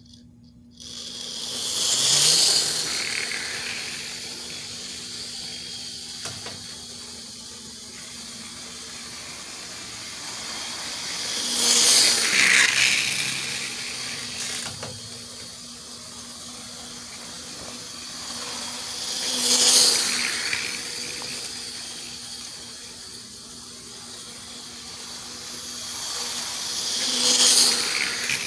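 HO scale 4-4-0 steam locomotive model train starting up about a second in, then running laps with a steady hissing, rattling rasp over a constant motor hum, growing loud each time it passes close, four times about 8 to 10 seconds apart. The rasp is what the owner takes for the caboose being dragged off the track.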